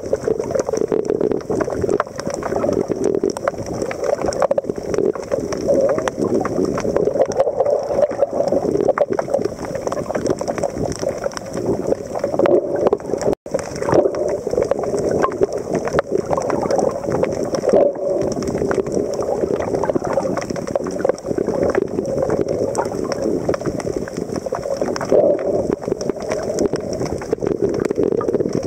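Muffled underwater ambience recorded by a submerged camera: a steady low water rush with many faint clicks running through it, and a split-second dropout about halfway through.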